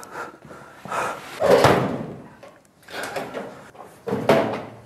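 A suitcase being hauled through a doorway: four or so separate thumps and knocks of the case and the door, the loudest about a second and a half in.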